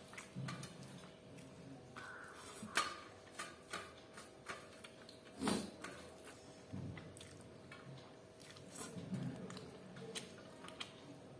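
Close-miked eating of chicken dry fry and jeera rice: soft chewing with many sharp little mouth and food clicks, two louder ones about three and five and a half seconds in.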